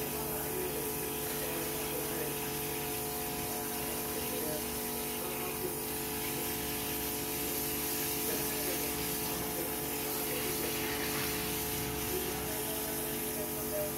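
A steady mechanical hum, several fixed tones over a faint hiss, from a motor or pump running without change.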